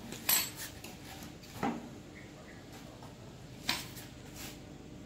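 Handling noise from a blue lay-flat hose being fitted by hand onto the outlet of a small engine-driven pump: three short knocks and rustles, about a third of a second in, near the middle and again about two seconds later.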